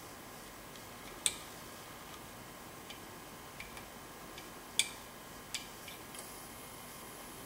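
Small, irregular metallic clicks of a hook pick working the pin tumblers of a six-pin Keymark mortise cylinder. There are about nine clicks at uneven spacing, two of them louder, one about a second in and one just before the five-second mark.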